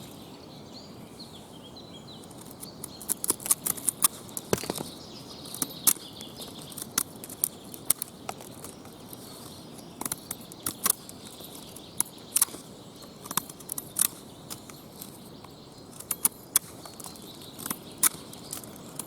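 Swiss Army pocket knife with a partly serrated edge whittling a point on a stick: a string of short, crisp cutting strokes through the wood, coming irregularly and some in quick clusters.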